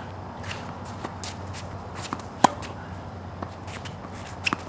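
A tennis ball struck once by a racket, a sharp pock about halfway through. Sneakers scuff on the hard court, and a couple of lighter taps come near the end.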